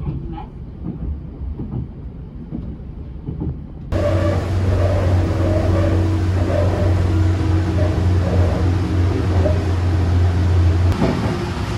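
Running noise of the Blue Symphony limited express train heard inside the car: a steady low rumble with a constant hum. It grows louder about four seconds in and drops back near the end.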